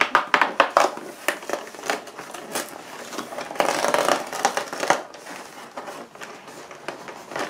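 Cardboard advent-calendar door being opened and the packaging inside handled: a run of sharp clicks and taps, with a longer crinkling rustle about three and a half seconds in.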